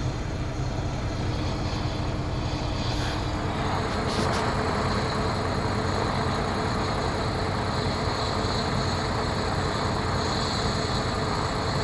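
Steady engine running at idle, with a change in the sound about three seconds in.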